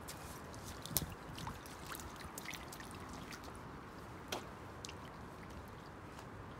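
Steady rain falling on wet asphalt, with a few sharp drips and small splashes on top. The loudest comes about a second in and another just past four seconds.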